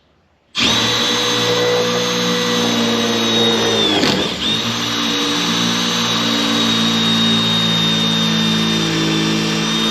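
Milwaukee M12 FUEL cordless impact driver with a 7/32 drill bit, drilling a pilot hole into a wooden shed door: a loud, steady motor whine that starts about half a second in. The pitch dips briefly about four seconds in, then the whine picks up again.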